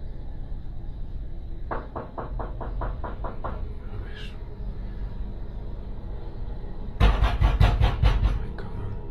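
Rapid knocking on a wooden door, about five knocks a second for roughly two seconds. A few seconds later comes a louder burst of banging on the door, the loudest sound, lasting about a second and a half. A low rumble runs underneath.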